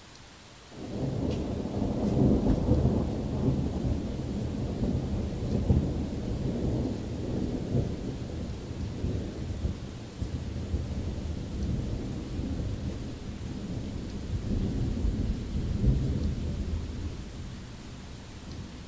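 Thunder: a long, deep rolling rumble that breaks in suddenly about a second in, surges several times and slowly dies away near the end.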